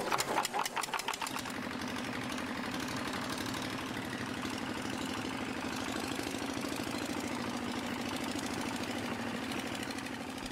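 A long-tail boat's single-cylinder diesel engine, hand-cranked, catches and quickens in the first second or so. It then runs steadily with a fast, even beat.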